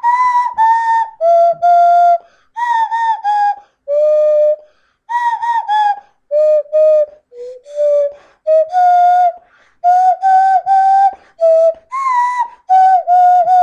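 A short tune performed in clear, whistle-like notes, moving up and down in pitch, with several notes repeated in quick groups of two or three.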